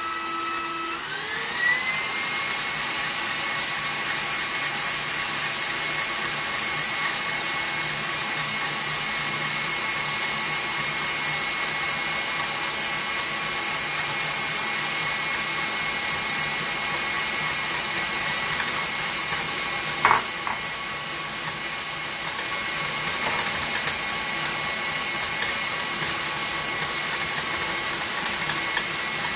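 KitchenAid Professional HD stand mixer whining up to high speed about a second in, then running steadily as its wire whisk beats egg whites and sugar into a glossy meringue. A single sharp knock comes about twenty seconds in.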